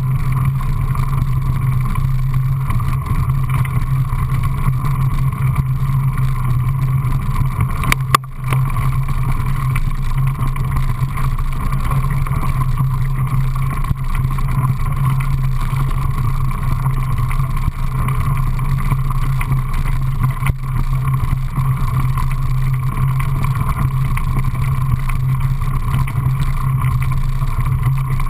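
Steady rolling and wind rumble from a mountain bike ridden fast down a dirt and gravel trail, picked up by a camera mounted on the bike or rider. One sharp knock comes about eight seconds in.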